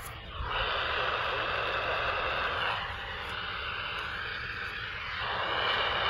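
AM radio hiss and static from a portable receiver, shifting in tone a couple of times.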